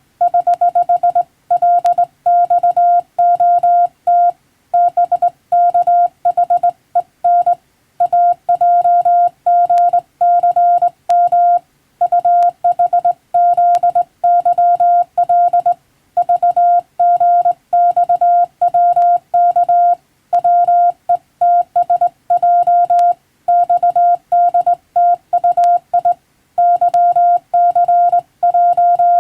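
Morse code (CW) sent as a single steady beep keyed on and off in short dots and longer dashes, with brief gaps between characters and words: a telegraph operator sending English-text telegram practice.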